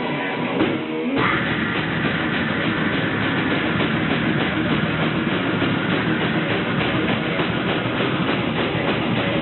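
Heavy metal band playing live, with electric guitars and drums. After a thinner guitar passage, the full band comes in about a second in and plays on at full volume.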